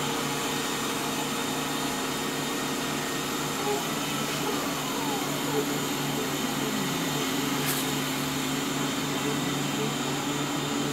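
Small benchtop CNC mill running and cutting wood with a carbide end mill: a steady motor drone and cutting noise, with the pitch rising and falling now and then as the table moves, and one sharp click a little past the middle.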